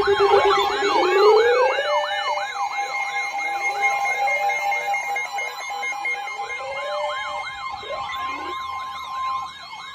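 Electronic siren alert sounding loudly, several siren tones layered at once: a fast up-and-down yelp about two to three times a second over slower rising wails and steady tones. It is the alert going off ahead of a severe thunderstorm warning.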